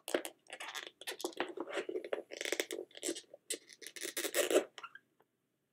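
Thin plastic lid of a round takeout food container being pried and worked off by hand, crackling and scraping irregularly before stopping near the end.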